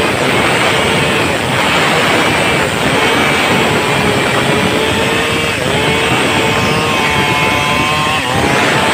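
Stihl MS 382 two-stroke chainsaw running at full throttle while ripping lengthwise through a log. Its pitch dips briefly a few times under the load of the cut.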